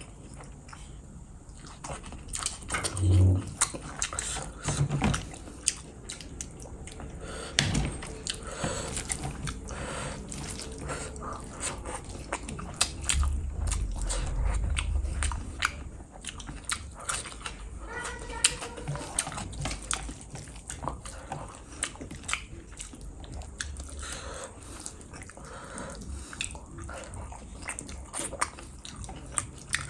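A person eating rice and fish curry by hand close to the microphone: wet chewing and lip smacking with many sharp mouth clicks, and a few low thumps.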